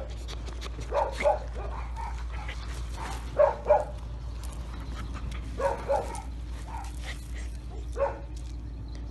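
Young dog giving short barks and yips during rough play-biting, mostly in quick pairs every two to three seconds.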